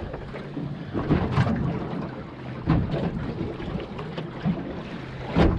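Wind buffeting the microphone and choppy water slapping against the hull of a small fishing boat, with a few sudden knocks and a steady low hum underneath.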